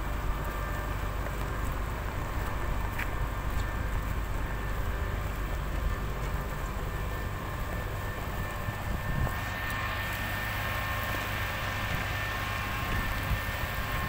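Mitsubishi motor grader's diesel engine running steadily under load with a low rumble and a thin steady whine above it, as the blade spreads a gravel road base. From about nine seconds in a hiss of gravel grinding under the blade and tyres grows louder as the machine passes close.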